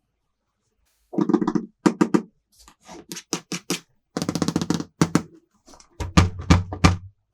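Small plastic toy pieces being handled: several bursts of rapid clicking and tapping, starting about a second in, with deeper knocks near the end.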